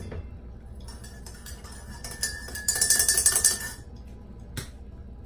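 A spoon stirring coffee in a mug: rapid clinking against the sides for about a second and a half, about two seconds in, with a faint ringing tone, then a single tap near the end.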